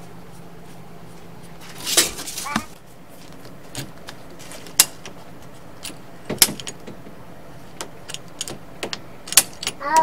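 Hand tools working on 1-inch PVC pipe while it is measured and cut: a short rattling scrape about two seconds in, then a string of sharp, irregular clicks and taps.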